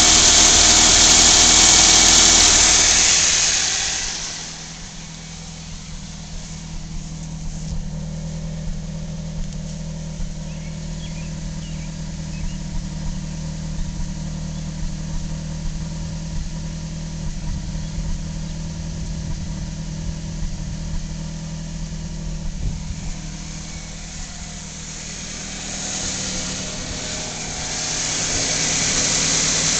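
Toyota Celica GT's four-cylinder engine running: loud with a strong hiss for the first three seconds, then a steady idle with small irregular puffs, growing loud again near the end. The puffing is the noise the owner is chasing; with oil loss and white exhaust smoke he suspects bad valve seals or a failing head gasket.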